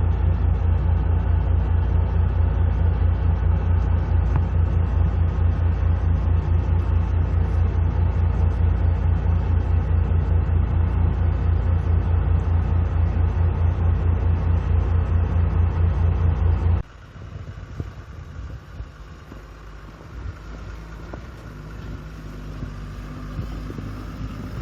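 Heavy diesel engine of snow-clearing machinery running with a steady, rapid throb. It cuts off suddenly about 17 seconds in, leaving a much quieter, fainter engine rumble with a few scattered knocks.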